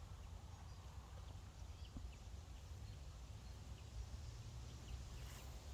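A mixed flock of finches, goldfinches and chaffinches, giving faint, short high calls scattered throughout, over a steady low wind rumble.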